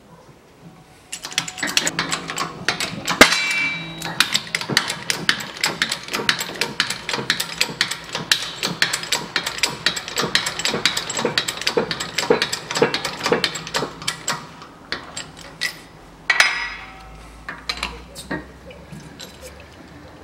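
Hydraulic bottle-jack shop press being pumped to press a new front hub bearing into the steering knuckle, with the old bearing as the driver: a long run of quick metallic clicks and clanks. There is one sharper crack about three seconds in and a louder clunk about sixteen seconds in.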